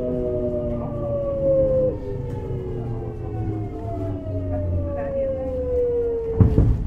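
Kintetsu 1020-series electric train heard from inside the car: the motors' whine, several tones together, falls steadily in pitch as the train slows under braking, over the low rumble of the running gear. A heavy thud comes about six and a half seconds in.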